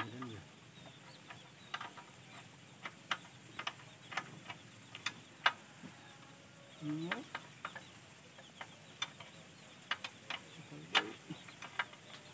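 Scattered light metallic clicks and taps as a spanner and hands work on the engine-mount bolts and pulley of a hand tractor, with three short low calls rising in pitch near the start, about seven seconds in and near the end.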